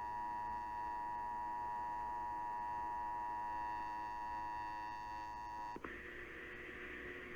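Emergency Alert System attention signal, a steady two-tone alert (853 and 960 Hz together), received over the radio with a buzzy stack of extra tones. It cuts off abruptly about six seconds in, leaving radio hiss and hum.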